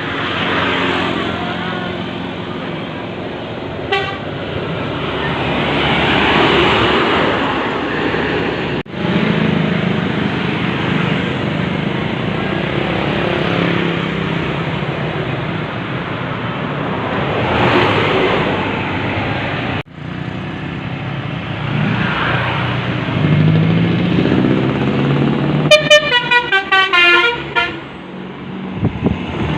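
Vehicles going by one after another, with road and engine noise swelling and fading as each passes. Near the end, a multi-tone basuri-type bus air horn sounds a quick run of short blasts, its notes changing rapidly.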